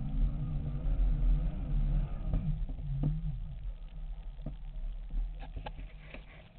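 Segway x2's electric drive humming with a wavering pitch over a low rumble of tyres on gravel, dying away as it slows to a stop about halfway through. A few light clicks follow near the end.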